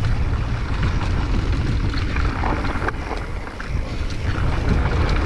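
Wind buffeting a helmet-mounted action camera's microphone as a mountain bike rolls down a dirt trail, with tyre noise on the dirt and scattered clicks and rattles from the bike.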